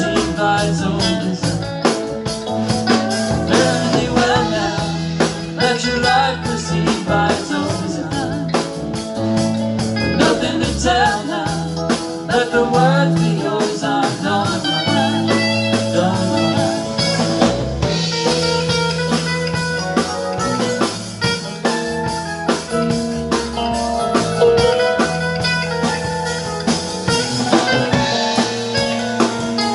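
Live rock band playing: electric guitars, electric bass, drum kit and keyboard, with a guitar line bending through the notes over the rhythm section.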